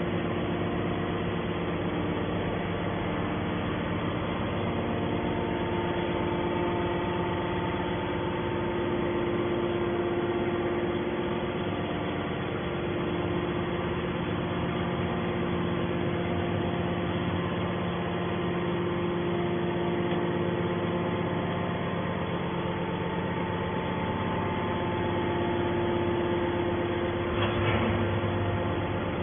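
Hydraulic metal baler running steadily while it presses stainless steel, its motor and pump humming with several steady tones. There is a short knock near the end.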